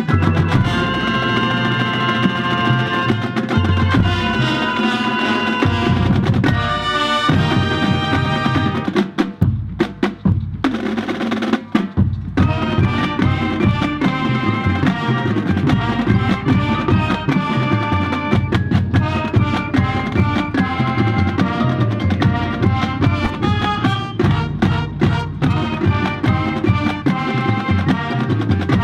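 Marching band playing: brass, woodwinds and drums together. About a third of the way in the held chords break off for a few seconds of separate drum hits, then the full band comes back in with short rhythmic figures.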